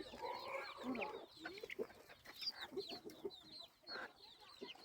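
A flock of chickens clucking, with many short high peeps over lower, irregular clucks.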